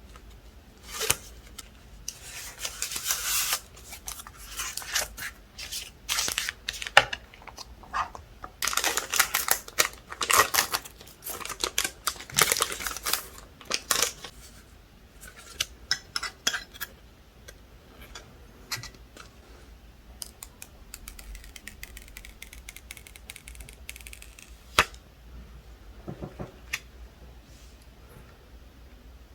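Packaging of a tempered-glass screen protector set being opened and handled: bursts of rustling and tearing with scattered clicks, busy for the first half and then sparser, with a single sharp tap near the end.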